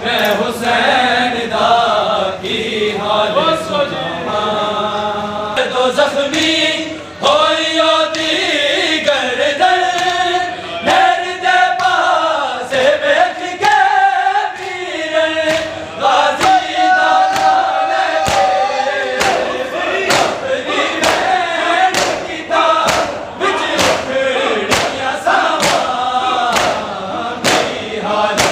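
A group of men chanting a Punjabi noha in unison, loud and with some reverberation. Sharp, roughly regular slaps of hands striking chests (matam) keep the beat, coming more often in the second half.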